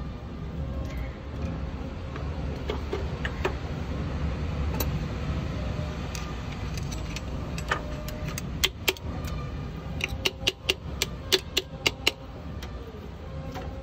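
Sharp metallic clinks of tools and parts knocking together at a Piaggio Ape's open clutch housing as the clutch pressure plate is set, about a dozen clinks bunched together just past the middle. A steady low rumble runs underneath.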